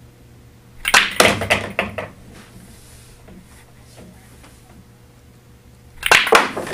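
Pool balls clacking on a billiard table: about a second in, a cue strikes the cue ball and a rapid string of ball-on-ball clicks and knocks follows for about a second. Near the end, the next shot is struck, with another quick burst of cue and ball clicks.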